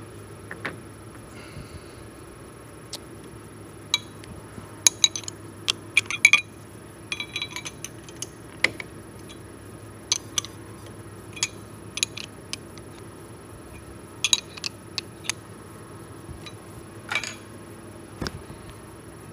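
Scattered metal clinks and taps as steel tool holders are handled and swapped on a lathe's quick-change tool post, loudest about five to six seconds in, over a steady low hum.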